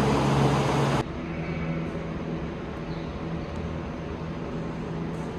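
An engine running steadily. For the first second a loud hiss rides over it, then cuts off abruptly, leaving a quieter, even engine drone.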